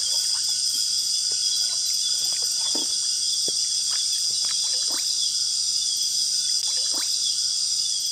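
Dense chorus of insects in the Amazon rainforest, a steady high-pitched buzzing, with scattered short falling chirps from other small animals.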